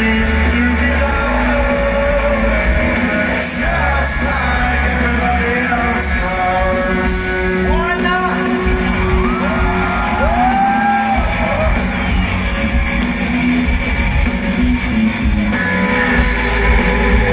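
Live rock band playing, with a male vocalist singing over electric guitars and drums, heard from within the audience in a large, reverberant hall. The deep bass drops back about four seconds in and returns near the end, while swooping guitar glides sound around the middle.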